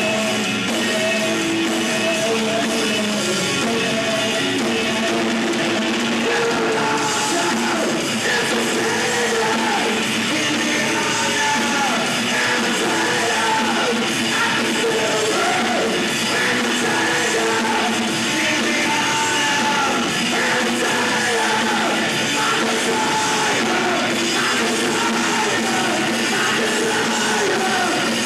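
A rock band playing live, with a vocalist singing over the guitars from about eight seconds in.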